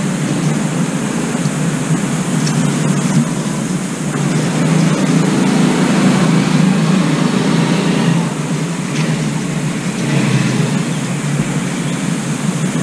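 Steady, low rumbling background noise with a few faint clicks.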